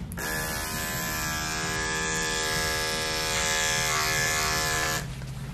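Electric dog-grooming clipper switched on and running with a steady buzz as it clips the fur on a dog's front leg, then switched off near the end.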